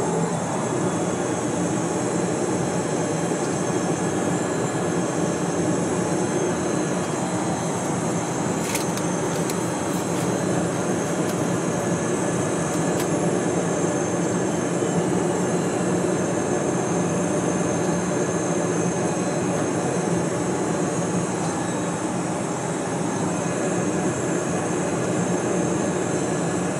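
Steady cockpit noise of a Cessna Citation Mustang on final approach: the rush of airflow and the hum of its twin Pratt & Whitney PW615F turbofans, with a faint high whine. A few faint clicks come about nine to thirteen seconds in.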